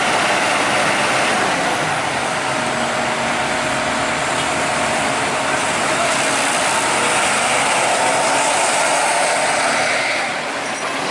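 Kobelco SK200 crawler excavator travelling on its steel tracks, the track links clattering steadily over the running diesel engine.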